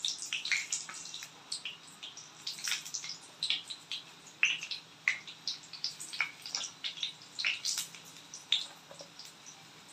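Urad dal vadas (garelu) deep-frying in hot oil in a kadai, the oil crackling with irregular sharp pops as more vadas are slipped in one by one for their second fry.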